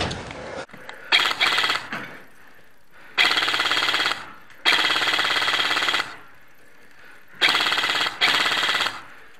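Airsoft electric rifle firing full-auto bursts, six in all: two short ones about a second in, two longer ones of about a second and a second and a half in the middle, and two short ones near the end, each a fast buzzing rattle of shots.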